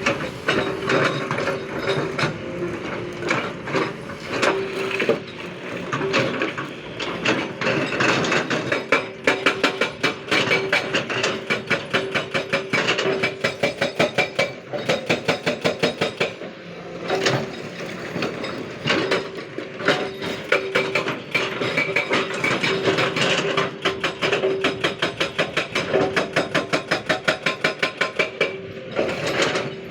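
JCB backhoe loader at work: rapid, repeated metallic knocking and clatter, pulsing about four times a second in stretches, over an on-and-off steady hum.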